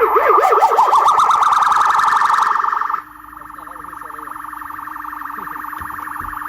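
Loud electronic siren cycling through its tones, as a car alarm does: a fast rising-and-falling wail for about three seconds, then an abrupt switch to a quieter, rapidly pulsing steady tone.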